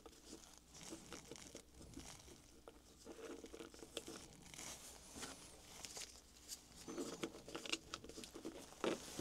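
Faint handling of small 3D-printed plastic puzzle pieces in nitrile-gloved hands: soft crinkling and rubbing of the gloves with scattered light clicks as the magnet-fitted parts are pressed together.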